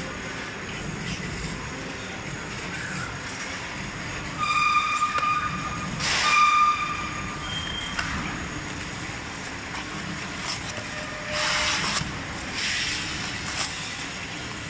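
Mask cartoning and packaging machine running with a steady mechanical clatter and hum. Two held beep-like tones of about a second each come near the middle, and short hissing bursts come several times.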